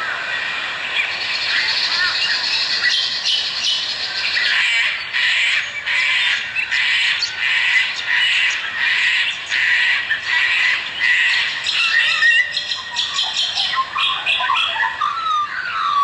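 Dawn chorus of many birds calling at once, a dense rapid chatter. A few sliding whistled calls stand out near the end.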